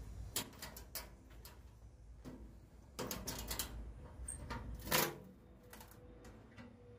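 Irregular clicks and light knocks of hard objects being handled, with a cluster of them about three seconds in and one louder clack about five seconds in.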